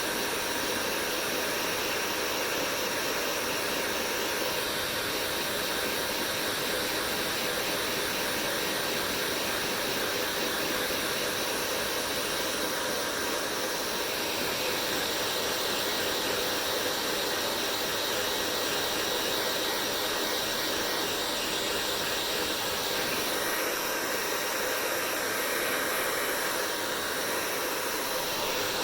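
Hair dryer running steadily: an even rush of blown air with a faint steady motor whine, unchanging in speed and level.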